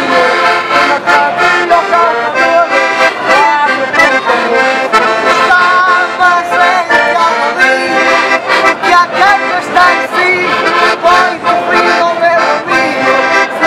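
Ranco accordion playing a traditional Portuguese folk tune, a melody over full chords with a steady beat.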